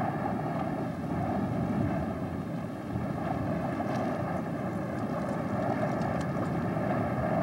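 Blizzard wind blowing hard and steadily, swelling and easing in gusts.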